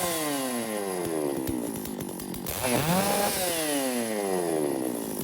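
Stihl MS 650 chainsaw's two-stroke engine revved up sharply, with the pitch falling slowly back each time as the engine winds down; a fresh rev comes nearly three seconds in. The saw is being test-run after a repair to its chain-oiling system.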